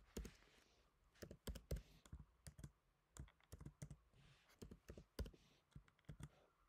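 Faint, irregular keystrokes on a computer keyboard, typing out a line of code.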